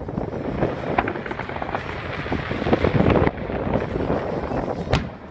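Aerial fireworks bursting: booms and cracks over a steady rumble, with a sharp bang near the end.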